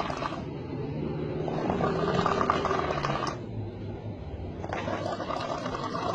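A person snoring, with a loud fluttering snore about every three seconds and a quieter breath between them.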